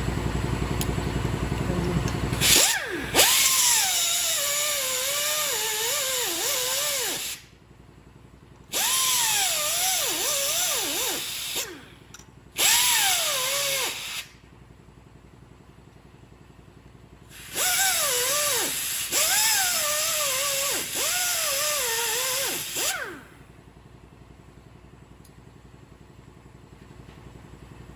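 Handheld power tool run against the steel frame of a 1961 Cadillac in four bursts, its pitch dropping and wavering as it loads up and bogs. A steady low hum comes before the first burst.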